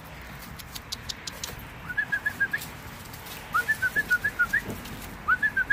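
Three quick runs of short, clear whistled notes, each run six to eight notes long, with pauses of about a second between runs.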